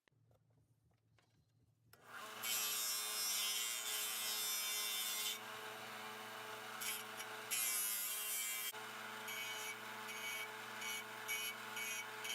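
Small power tool's motor starting about two seconds in and running steadily, with a rasping sound coming and going as it cuts into wood.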